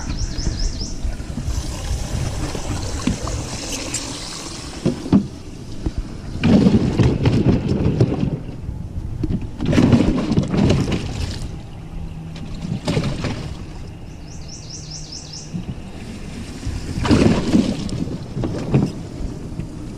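Water splashing and sloshing, with bumps and rustling against a small plastic fishing boat, as a largemouth bass is handled; loudest in bursts about six, ten and seventeen seconds in.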